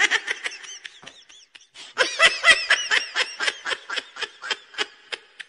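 High-pitched laughter in rapid ha-ha pulses, several a second. A short spell at the start is followed by a longer, louder run from about two seconds in that fades near the end.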